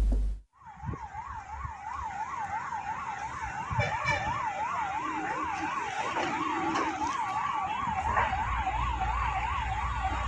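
Electronic siren warbling rapidly up and down, about three sweeps a second, starting about half a second in, over a steady rushing noise.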